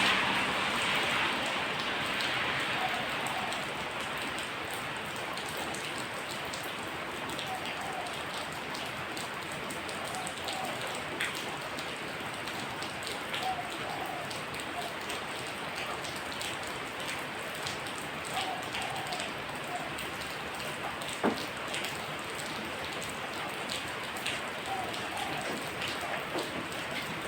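Steady rain falling on a surface, an even hiss with scattered single drips ticking through it. A louder rush fades away over the first few seconds.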